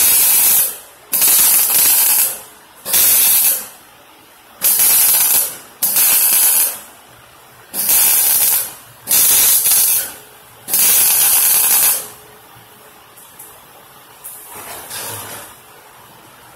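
MIG welder arc laying short stitch or tack welds: eight bursts of hissing, sizzling arc noise, each about a second long with brief pauses between, stopping about twelve seconds in.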